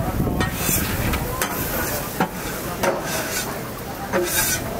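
Griddle sizzling steadily, with about half a dozen sharp scrapes and clicks of metal utensils on trays, two of them longer and hissy.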